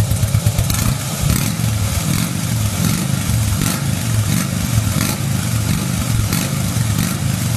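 Harley-Davidson Fat Boy 1450's air-cooled V-twin running steadily through a Roncar Scorpion 2Way exhaust with its valve open in the sport setting, giving the louder, deeper exhaust note. A few sharp ticks sound over the engine.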